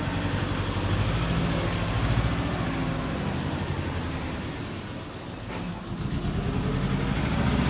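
Engine of a small wheel loader running steadily, fading somewhat about two-thirds of the way through and then growing louder again near the end.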